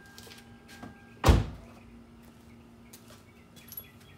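A car door shut with one heavy thud about a second in, over a faint steady hum.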